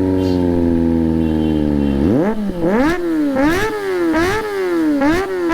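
Kawasaki ZX-25R's inline-four engine on an Akrapovic shorty slip-on exhaust: it holds steady revs for about two seconds, then the throttle is blipped about five times in quick succession, the pitch rising and falling with each blip.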